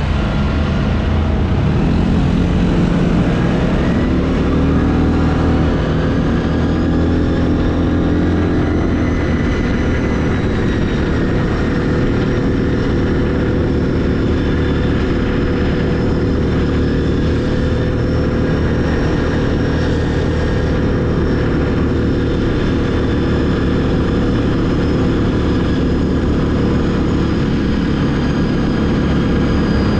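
ATV engine running under load, rising in pitch over the first several seconds as it speeds up, then holding a steady pitch.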